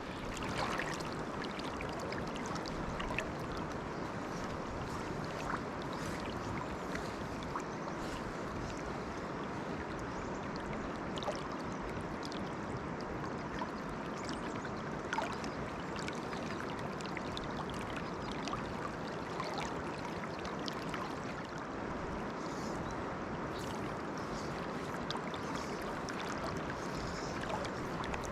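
Steady rush of river water running over rocks, with a few faint ticks scattered through it.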